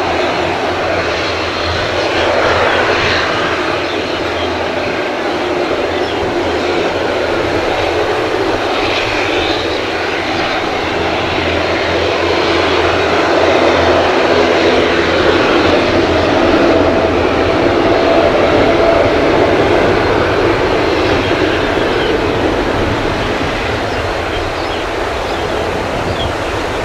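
Jet engines of a Boeing 787-9 airliner, a continuous loud aircraft engine noise that swells slightly past the middle.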